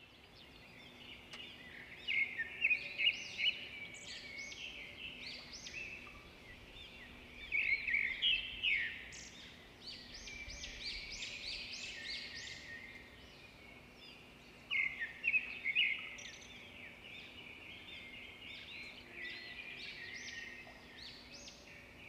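Birds chirping and calling in quick high notes, with louder bursts of rapid chirps about two, eight and fifteen seconds in, over a faint steady low hum.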